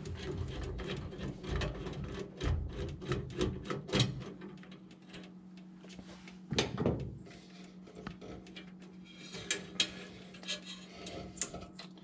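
A screwdriver backing out the 1/4-inch screw on a furnace flame sensor mount, then the sensor being worked free of the burner assembly: a run of small metallic clicks and scrapes, thickest in the first few seconds, with a louder clatter about halfway through and a steady low hum underneath.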